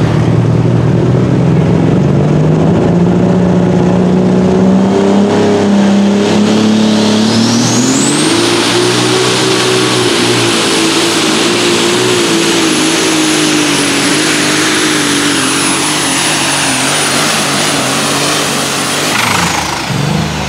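Light Super Stock pulling tractor's turbocharged diesel engine at full power dragging the sled. The engine note climbs over the first several seconds, then a high turbo whistle rises and holds with the engine until near the end, when both drop away as the pull finishes.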